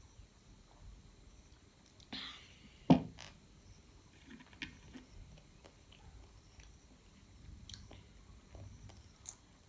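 A drinking glass set down on a table with a sharp knock just before three seconds in, the loudest sound, shortly after a brief breathy hiss. Afterwards there are a few faint clicks as wooden chopsticks are picked up and handled.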